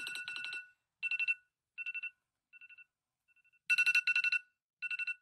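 Phone alarm ringing: short bursts of rapid electronic trilling on two pitches. It fades to faint a little past halfway, comes back loud, then stops.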